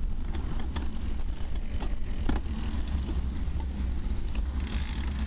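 Wind rumbling over the microphone of a camera carried on a bicycle while racing, with a few scattered small clicks and rattles.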